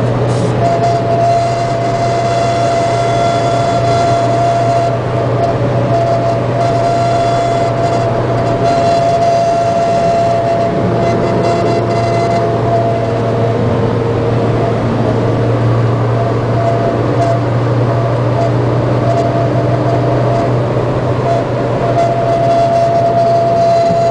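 Inside the cabin of a 2008 Mini Cooper S at highway speed above 70 mph: a steady low road and engine drone with a steady whistling tone over it. The whistle is wind noise, which the owner thinks comes from the windshield.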